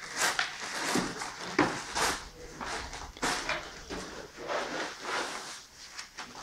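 Irregular scrapes and knocks of floor tiling work: a tiler's tools working tile adhesive in a plastic bucket and setting wood-look ceramic floor tiles, with taps of a rubber mallet.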